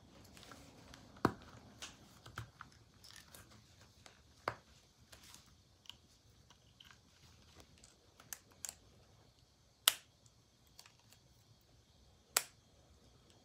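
Scattered clicks and light taps of plastic blood-glucose testing supplies being handled: the meter, the test strip vial and the lancing device. A few sharper clicks stand out, about a second in, near the ten-second mark and shortly before the end.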